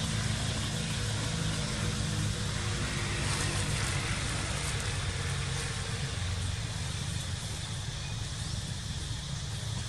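A steady low engine hum, like a motor vehicle running at idle.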